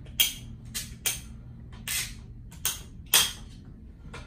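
Ratcheting PVC pipe cutter clicking as it is squeezed through a plastic pipe: about six sharp clicks at uneven intervals, the loudest about three seconds in.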